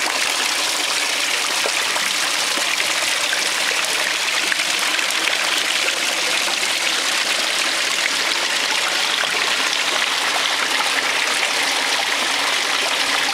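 Fountain water falling and splashing steadily into a pan and a round basin, a continuous bright hiss of running water.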